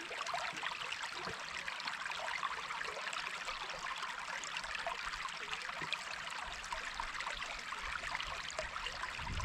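Small forest brook trickling and splashing over rocks: a steady babble of running water.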